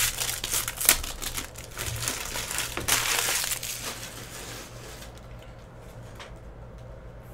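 Foil wrapper of a Panini Prizm basketball card pack crinkling and crackling as it is torn open and handled, densest over the first four seconds or so. After that only faint handling ticks remain.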